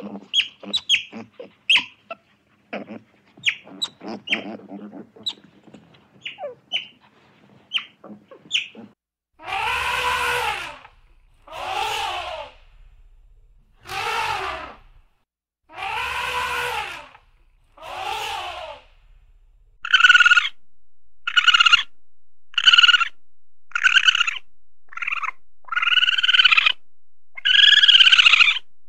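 Animal calls in three runs: many quick chirps and squeaks, then five long drawn-out calls about two seconds apart, then a run of shorter repeated calls over a steady background hiss.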